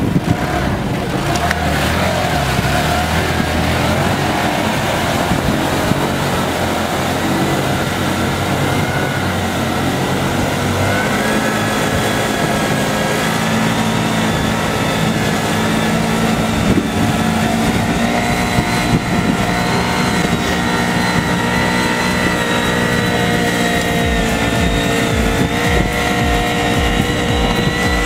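Engine of a small off-road buggy on oversized low-pressure tyres, running steadily under load as it drives into and through an icy river; its pitch steps up about eleven seconds in and again later.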